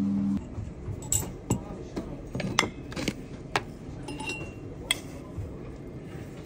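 Light clinking and tapping of glass, crockery and cutlery being handled, a series of scattered sharp knocks, with a brief high tone about four seconds in.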